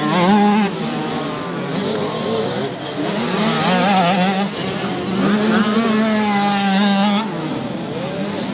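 Small 65cc two-stroke motocross bike engines revving up and down as the riders race round the dirt track, the pitch wavering, then holding steady for a couple of seconds before dropping about seven seconds in.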